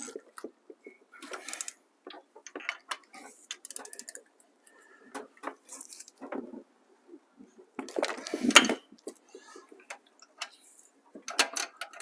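Hand tools working on a cylinder head: a long socket wrench and extension clinking and clicking as they are fitted onto head bolts and turned, metal on metal, with a louder rattle lasting under a second about eight seconds in.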